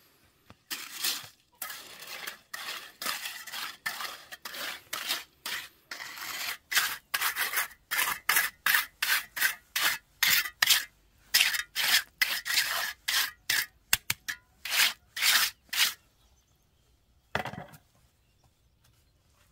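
Rhythmic scraping strokes, irregular at first, then settling into a steady pace of about two strokes a second before stopping; one short duller sound follows.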